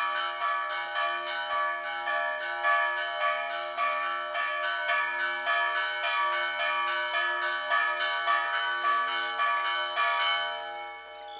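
Bells ringing a rapid peal, quick overlapping strikes over lower held notes that alternate. The ringing stops about a second before the end and dies away.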